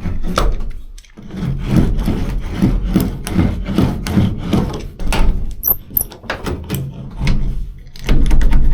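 Hand roller worked back and forth, pressing sound-insulation sheet onto a truck cab panel: rhythmic rubbing strokes, about two a second, then scattered rubs and knocks.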